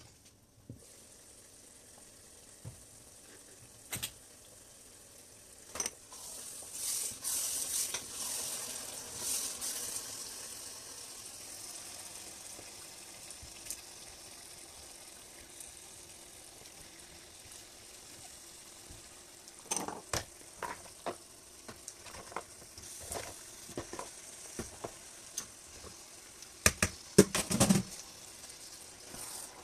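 A pot of palm oil stew sizzling as pieces of cooked cow tripe and cow leg are dropped in and stirred with a spatula. The sizzle is loudest a few seconds in, and the spatula knocks against the pot in clusters later on, most loudly near the end.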